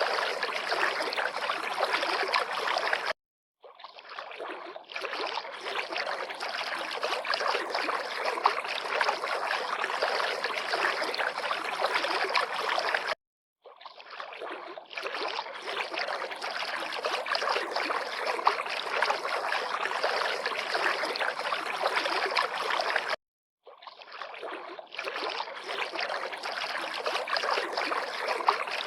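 River water flowing and lapping, a steady dense rush of water noise. It drops out to dead silence three times for a fraction of a second, about ten seconds apart, and fades back in after each gap.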